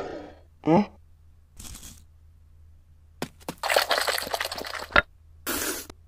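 Cartoon eating sound effects for the larvae wolfing down spaghetti: a short squeaky falling character cry, then a long crackly gobbling noise ending in a sharp click and a brief hiss.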